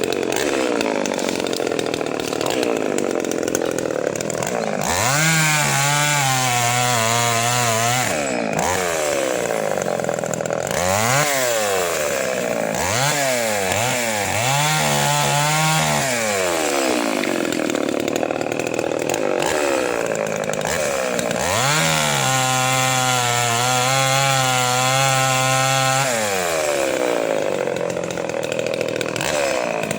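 Chainsaw running and revved up to full speed several times, held high for a few seconds each time as it cuts, then dropping back to a lower, steady run in between.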